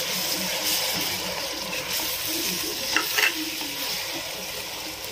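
Green masala paste frying and sizzling in hot oil with onions and tomatoes, stirred with a silicone spatula against the metal pot, with a few brief scrapes about three seconds in.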